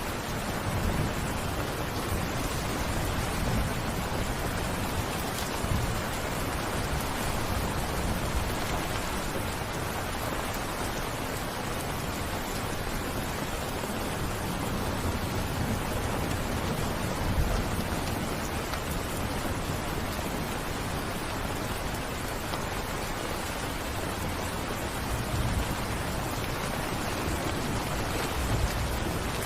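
Rain falling steadily, an even dense hiss, with a few brief low rumbles.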